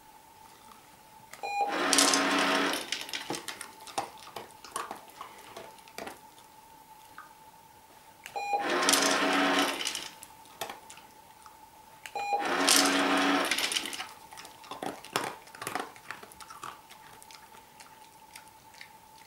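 PetSafe Treat & Train remote treat dispenser cycling three times: each time a short beep, then its motor whirs and rattles for about a second and a half as it turns out treats into the tray. Between the cycles come small clicks and crunches of a dog eating from the tray.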